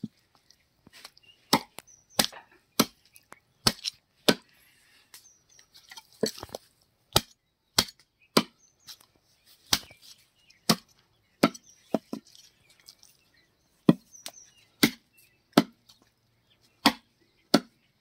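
A large knife chopping chicken into pieces on a round wooden log block: about twenty sharp knocks of the blade striking the wood, at an uneven pace of one or two a second.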